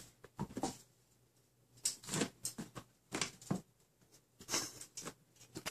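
A Bengal kitten's claws scrabbling and scratching on the carpet of a cat tower as it climbs, in irregular bursts.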